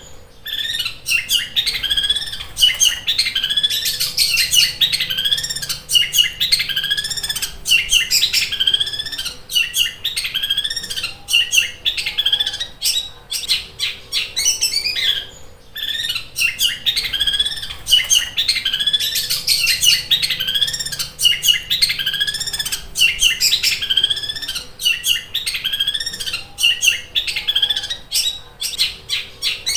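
Long-tailed shrike (cendet) singing without pause in a rapid, very sharp chatter of chirps and clicks, mimicking the squabbling calls of fighting tree sparrows, likened to the sound of a sewing machine.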